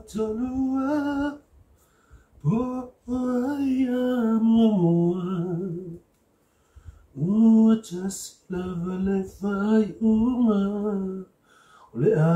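A man singing a melody unaccompanied, in phrases with held notes and two short breaks.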